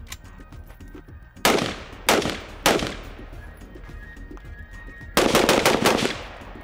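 Carbine gunfire: three single shots a little over half a second apart, then a fast string of about six shots near the end.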